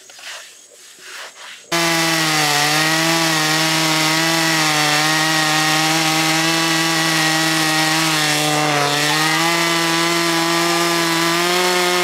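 Wood-Mizer hydraulic band sawmill running steadily. It starts abruptly about two seconds in, and its pitch sags slightly now and then.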